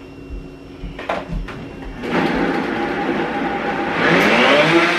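Countertop blender starting about two seconds in and running, blending a full jar of fruit, spinach and almond milk into a smoothie; it gets louder about two seconds after it starts. A couple of light knocks come before it starts.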